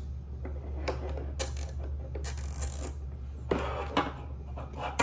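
Hand ratchet wrench clicking in short, irregular runs, with metal tools knocked and set down on a table.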